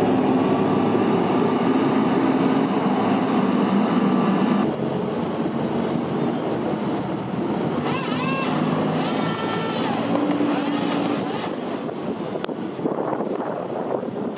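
Diesel engine of a Merlo Roto telehandler running steadily, with the rising and falling whine of its hydraulics as the boom-mounted Westtech Woodcracker grapple saw works in a tree midway through, and a sharp click near the end.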